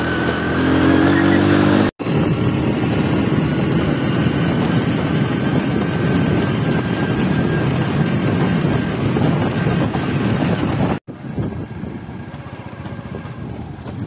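Motorcycle engine running as it is ridden along a dirt track, its pitch rising in the first couple of seconds and then holding steady. The sound breaks off abruptly twice, and after the second break it is quieter.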